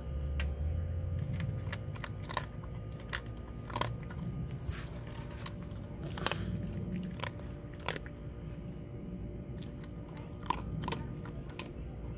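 A small dog chewing and crunching food close to the microphone, with irregular sharp crunches and bites.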